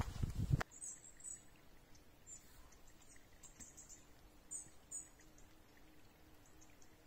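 A hiker's footsteps crunch on the trail and stop abruptly under a second in. Then small birds give short, high chirps every second or so over quiet open-air background, with a faint steady hum in the second half.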